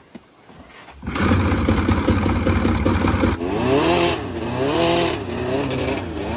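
100 hp two-stroke hovercraft engine catches about a second in and runs, then its speed surges up and down about once a second. It is running rough: it didn't sound good, and the owner fears the engine's old fault is back.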